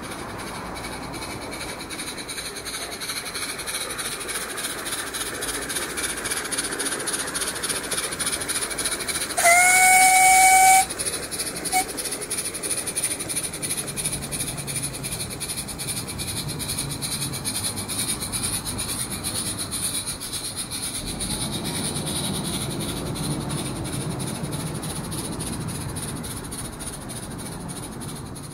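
Garden-railway model steam locomotive running with a train of coaches: a steady rhythmic chuff and hiss, with one short, loud whistle about a third of the way in. A low rumble of the train rolling along the track follows in the second half.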